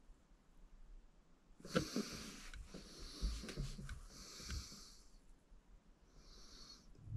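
Faint breathing of a shooter settling behind the rifle: three noisy breaths, a couple of seconds apart, with a few light clicks around the first.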